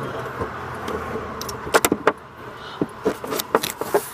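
Low steady rumble inside a car, then from about halfway a quick run of sharp clicks and knocks close to the microphone, from the phone being handled.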